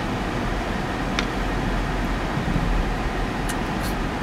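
Steady road and engine rumble inside a moving car's cabin, with a faint tick about a second in.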